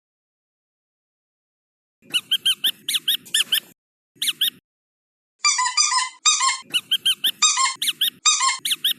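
Squeaky dog toy squeezed again and again in quick runs of short squeaks. The first starts about two seconds in, and a denser run with a slightly different tone starts about halfway through.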